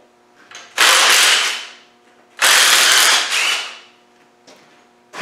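Cordless power driver run in two bursts of about a second each, backing out bolts that are too long.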